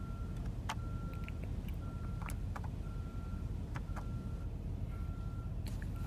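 Car's warning chime beeping steadily about once a second over a low cabin rumble, with a few faint clicks.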